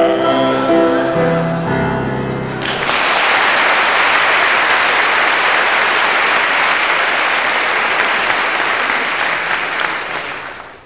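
The song's final piano chords, then a live audience clapping and applauding for about eight seconds, fading out near the end.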